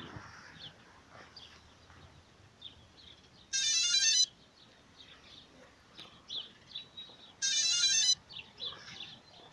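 Two short bursts of rapid electronic beep tones, each under a second, about four seconds apart, with faint bird chirps in between.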